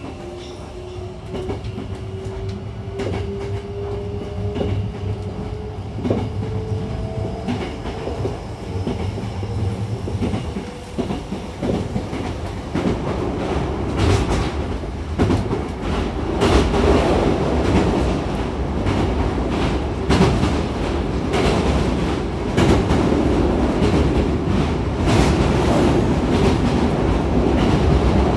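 Hankyu 9000-series electric train running, heard inside the passenger car. For the first ten seconds or so a motor whine slowly rises in pitch as it picks up speed. Then a louder rumble of wheels on rail takes over, with quick rail-joint clacks.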